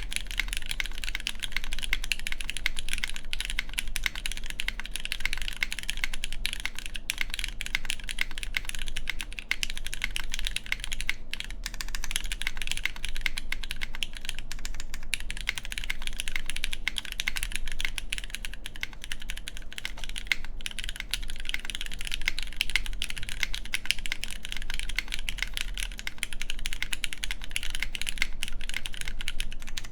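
Continuous typing on an Antipode Studio Pneuma Mk.2/60 mechanical keyboard with fully gasket-mounted aluminium plate, lubed Cherry MX Black Clear Top linear switches and GMK keycaps; the keystrokes run on densely, with only a few brief pauses.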